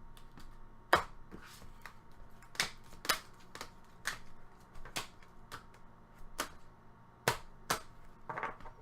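Irregular sharp clicks and taps, about fifteen of them, from trading cards and their plastic holders being handled and set down on a table.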